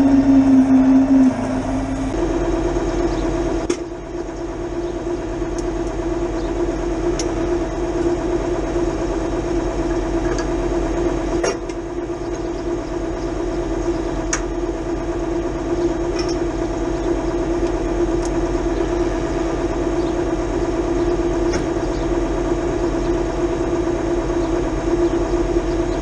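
Farm tractor's diesel engine idling steadily. Its note shifts slightly higher about two seconds in, and a few faint clicks and knocks sound over it.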